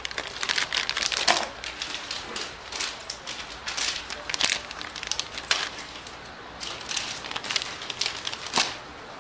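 Irregular crackling and clicking: a dense run of small clicks and crackles with no steady tone.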